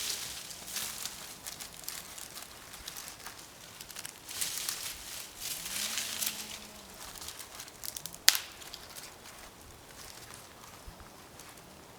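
Dry tinder and kindling rustling and crinkling in spells as a campfire is being readied, with one sharp crack about eight seconds in.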